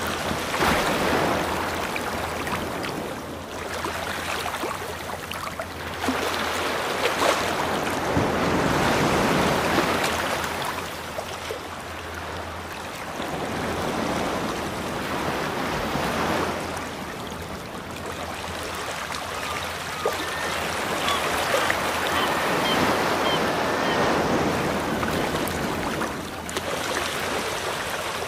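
Ocean surf washing in and drawing back, a steady rush of water that swells and fades every several seconds.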